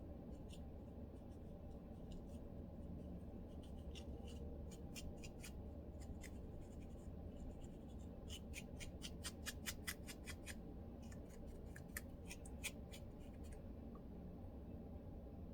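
Lice comb scratching through a dry, flaky scalp in short, sharp strokes, a fast run of about five strokes a second in the middle, over a steady low hum.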